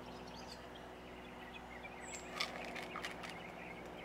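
Quiet open-country ambience: a steady low hum under a few faint, short bird chirps and small clicks, the sharpest click a little over two seconds in.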